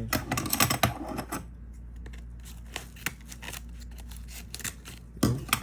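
Plastic packet being cut and opened by hand: a dense run of crinkling and clicking over the first second and a half, then scattered small clicks.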